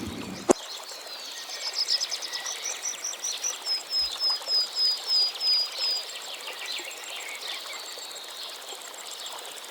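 A bird calling a rapid run of short, high, evenly repeated notes, about four or five a second for several seconds, over a steady forest hiss. A single sharp click comes about half a second in.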